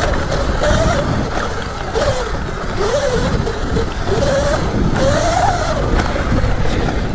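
Electric dirt bike's motor whining, its pitch rising and falling as the throttle is worked, over heavy wind rumble on the microphone.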